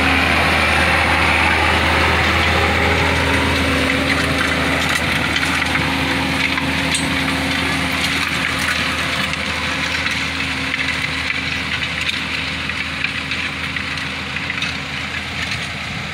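A 130-horsepower John Deere tractor's diesel engine running steadily under load while it drags a Rome Plow-type disc harrow, with the crunch and crackle of the discs cutting and breaking up soil clods. The sound fades gradually as the tractor pulls away.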